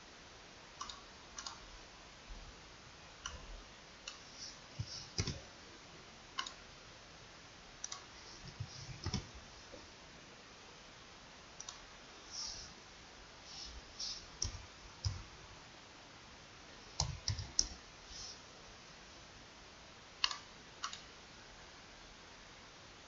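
Computer mouse and keyboard clicks, irregular, coming singly and in small clusters, while data is entered and windows are switched on a PC.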